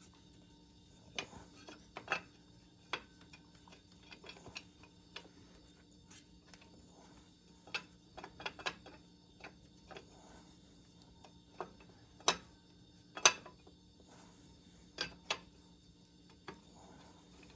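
Scattered, irregular sharp metallic clicks and clinks of bolts and hand tools as the bolts of the air-conditioning compressor's mounting plate are started finger tight.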